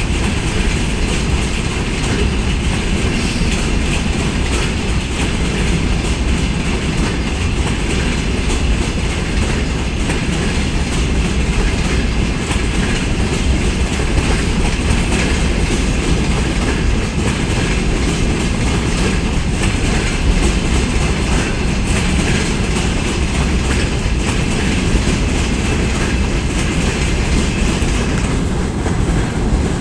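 Freight train wagons rolling steadily past, with a continuous clatter of wheels on the rails.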